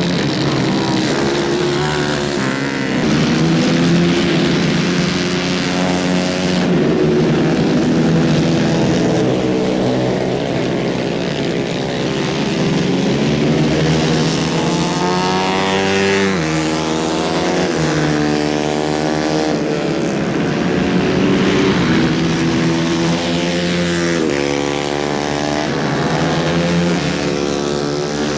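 150 cc racing kart engines running hard on a dirt track, their pitch repeatedly rising and falling as the karts accelerate down the straights and ease off into the corners, with more than one engine heard at once.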